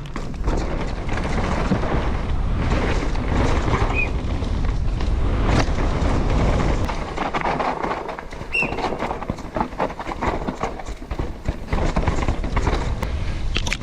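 Mountain bike being ridden over rough trail: steady tyre noise with a rapid rattling clatter of the bike over bumps, and a couple of short high squeaks.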